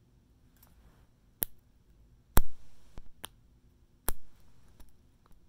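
Painted metal snap hair clips being clicked open and shut: about five or six sharp snaps at uneven intervals, the loudest about halfway through.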